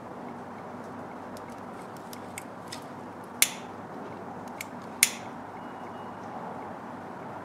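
Small metal wire terminal being handled and pushed against the oil pressure switch's connector: two sharp clicks about one and a half seconds apart, with a few lighter ticks, over a steady low hiss.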